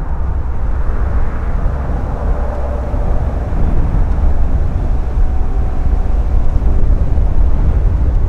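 Jet airliner engines, a Boeing 787-8 on final approach, growing louder from about three seconds in, with faint steady engine tones over a deep rumble.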